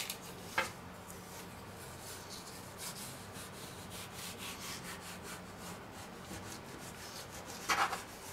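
Metal palette knife scraping along a silicone baking mat under a sheet of rolled cinnamon-star dough, loosening it from the mat. A quiet, even rubbing, with a light tick about half a second in and a few short louder scrapes near the end.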